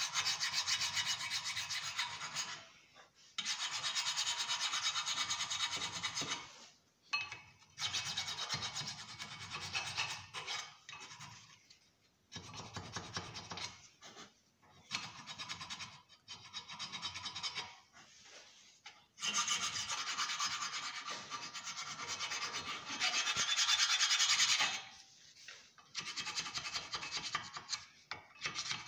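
Hand scraping of a steel brake caliper carrier bracket, cleaning rust and dirt off the surfaces the pads slide in so they move freely and don't stick. It comes in spells of fast rasping strokes a few seconds long, with short pauses between.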